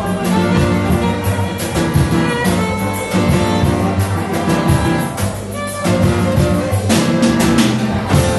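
A small live band playing: acoustic piano with double bass, drums and violin. Drum and cymbal strokes stand out about five seconds in and again near the end.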